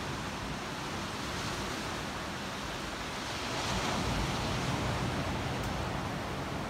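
Small sea waves washing up a sandy beach, a steady hiss of surf that swells about halfway through as a wave runs in.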